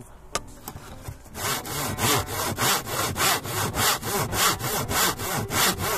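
Hand pull saw ripping lengthwise along tongue-and-groove boards, cutting on the pull stroke. It is quiet at first, then from about a second and a half in gives a steady rhythm of rasping strokes, about three a second.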